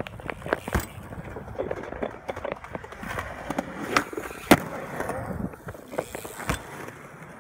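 A skateboard and a BMX bike riding on concrete: wheels rolling, with several sharp clacks and thuds as tricks are popped and landed. The loudest come about four seconds in, with the skateboard, and another comes near the end, with the BMX bike.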